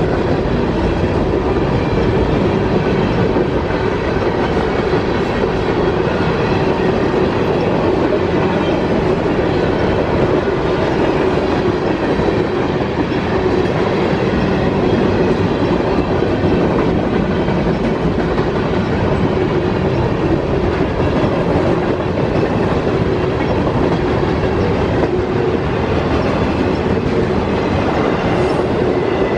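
CSX freight train rolling steadily past a grade crossing, its covered hoppers, tank cars and autoracks giving a continuous loud rumble of steel wheels on the rails.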